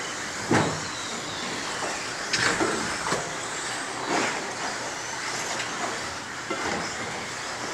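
1/10-scale radio-controlled off-road trucks racing: a steady hum of motors and tyres, broken by a few sharp knocks, about four in the first half, as trucks land jumps or strike the track.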